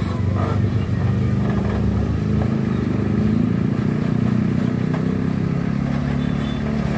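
Engine of a heavy road vehicle, a truck or bus, running close by as it passes: a steady low drone.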